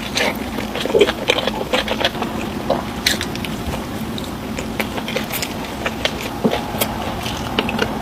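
Close-up eating sounds: a person biting and chewing food near the microphone, with irregular sharp crunches and clicks over a steady low hum.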